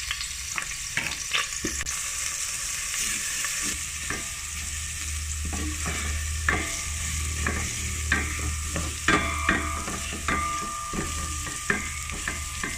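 Crushed ginger and garlic sizzling in hot oil in a stainless steel pot, with a silicone spatula scraping and clicking irregularly against the pot as it is stirred.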